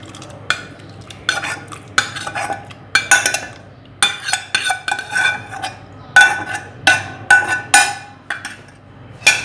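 A steel spoon scraping and knocking around the inside of a small steel saucepan as cooked milk and nuts are scraped out of it: a dozen or so ringing metal clinks at an uneven pace.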